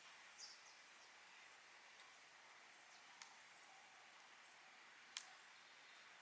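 Near silence, with three brief, very high bird chirps spread across it.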